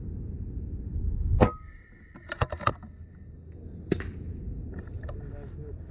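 One sharp air-rifle shot about a second and a half in, followed by a quick run of clicks and another single click near four seconds.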